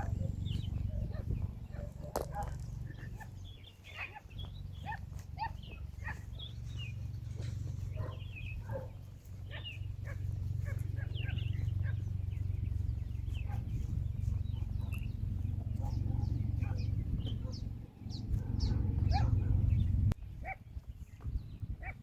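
Many small birds chirping in short, scattered calls over a steady low rumble, which cuts off suddenly about twenty seconds in.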